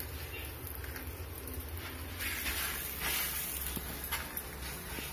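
Faint hiss of a stuffed chana dal puri cooking on a hot pan, growing stronger for a second or so about two seconds in, over a low steady hum.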